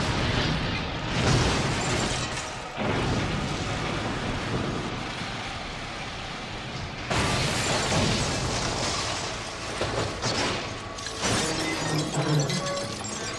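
Car crash impacts with shattering glass: several sudden loud crashes a few seconds apart, each followed by a noisy rush.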